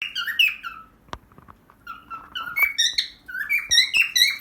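A cockatiel singing: a run of short whistled notes that step up and down in pitch. There is a brief pause with one sharp click about a second in, then faster phrases.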